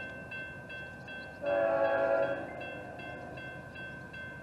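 Approaching CSX freight locomotive's air horn sounding a short blast about a second and a half in, between longer blasts just before and just after. In the gaps, a bell rings in quick regular strokes.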